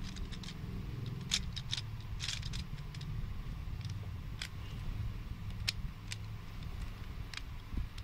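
Gear Shift puzzle cube being twisted by hand to scramble it: irregular clicks and clacks of its plastic gears and pieces, over a steady low rumble.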